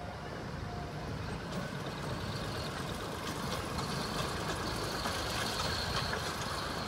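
Small narrow-gauge diesel locomotive approaching with its train, the engine running and growing steadily louder. A thin, high, steady squeal joins in from about three seconds in.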